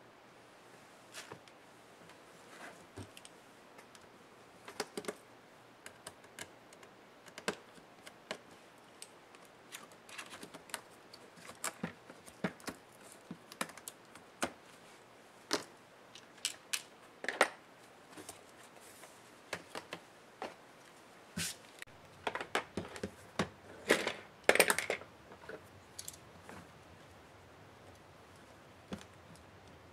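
Scattered small clicks and taps of a small screwdriver and hands working on the plastic and metal parts of a Lenovo IdeaPad Flex 14IWL laptop being taken apart. A little past two-thirds of the way through there is a busier run of louder knocks and clicks as the display assembly is handled.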